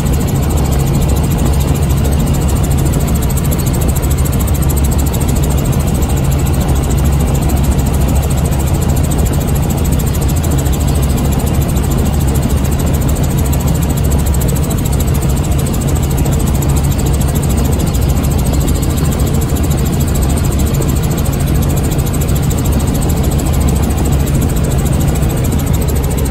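Robinson R44 Raven II helicopter in flight, heard from inside the cabin: the steady, loud drone of its piston engine and rotors, unchanging throughout.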